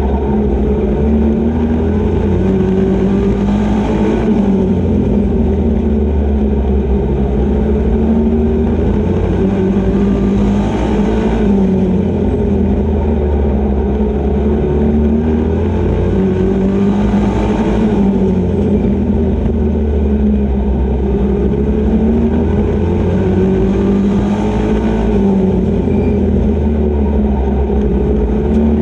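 Race truck engine heard from inside the cockpit, running hard at speed, its pitch swelling and easing in a regular cycle about every six to seven seconds, with a rush of noise at each peak.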